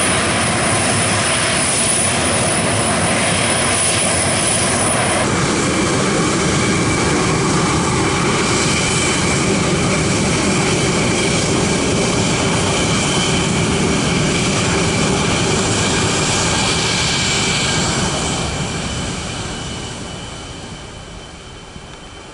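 Four CFM F108 turbofans of a Boeing KC-135T Stratotanker at takeoff power on the runway roll: loud, steady jet noise with a whining fan tone. The sound changes about five seconds in as the tanker passes, then fades over the last few seconds as it rolls away.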